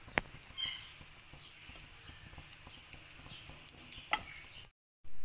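Faint sizzle and crackle of hot charcoal under chicken kabab skewers, with oil from the meat dripping onto the embers. A sharp click just after the start as a metal skewer is set down on the iron pan's rim, and another about four seconds in.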